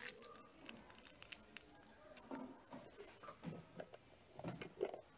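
Faint handling noise: soft rustling and scattered light clicks from plush toys being pressed and the phone being moved, with a sharper click right at the start.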